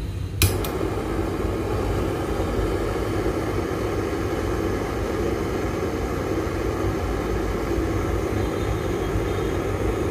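Handheld gas torch lit with a sharp click about half a second in, then the flame's steady roaring hiss as it heats a small piece of silver to melt it into a bead.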